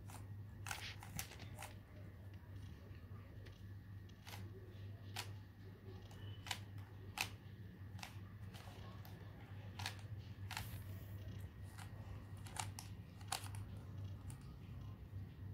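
Stickerless 3x3 Rubik's-type cube being turned by hand, its layers giving sharp single clicks at an irregular pace of about one or two a second, over a steady low hum.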